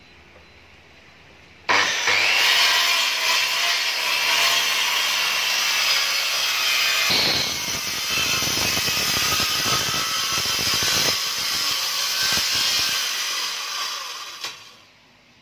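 Handheld electric circular saw ripping a long wooden board lengthwise along a rip fence. It starts abruptly about two seconds in, runs steadily through the cut with a heavier note in the middle of the cut, and winds down near the end.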